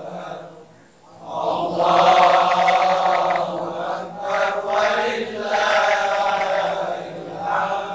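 Islamic religious chanting: a voice drawn out in long melodic phrases, with a brief pause about a second in and again near the end.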